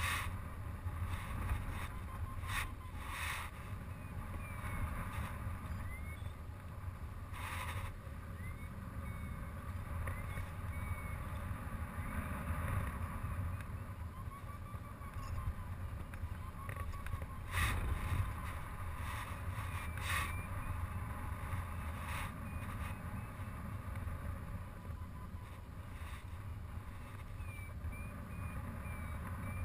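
Wind rushing over the camera of a paraglider in flight, a steady low buffeting with a few brief stronger gusts. Short beeps from the glider's variometer come and go, shifting in pitch, the climb signal heard while thermaling.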